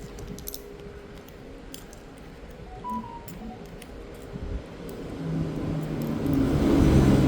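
Light clicks and taps of small smartphone parts being handled and pressed back into place during a screen repair. A louder, steadier handling noise builds over the last two seconds.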